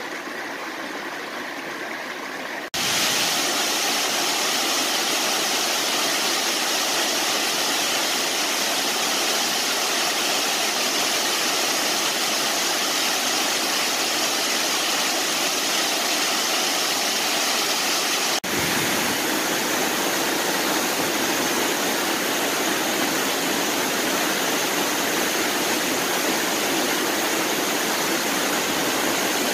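A creek rushing over boulders, then, about three seconds in, a sudden change to the louder, steady noise of a waterfall. The sound breaks for an instant about eighteen seconds in, and a second waterfall, plunging into a pool, carries on.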